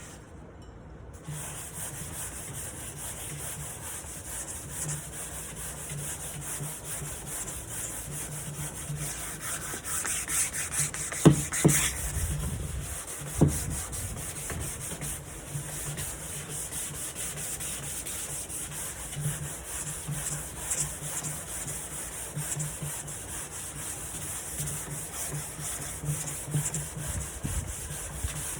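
Sanding the wooden side of a nightstand: steady abrasive rubbing that starts about a second in, with a few sharp knocks a little before the middle.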